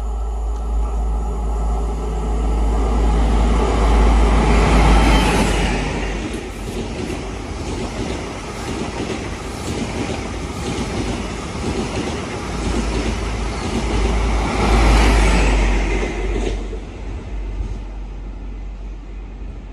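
A Midland Pullman HST set, powered by class 43 power cars 43046 and 43055, passes at speed. The leading power car is loudest about five seconds in, followed by a steady clatter of wheels from the coaches. The rear power car swells past about fifteen seconds in, and then the sound fades away.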